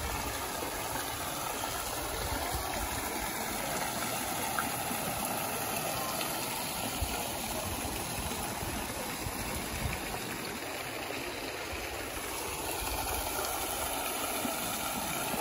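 Steady rushing and splashing of swimming-pool waterfalls and fountain jets pouring into the water, with an uneven low rumble underneath.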